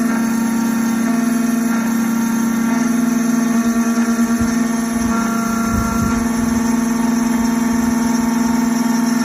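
Triton Plus key machine's motor running steadily with a strong hum while its cutter works a hard genuine Hyundai key blade. The hum's pitch pattern changes a few times as the machine moves along the cut, with a short rougher patch about four to six seconds in.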